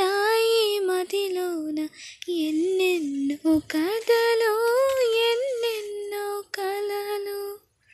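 A solo singer's high voice singing a Telugu song melody, the pitch gliding up and down through sustained notes with short breath breaks, stopping shortly before the end.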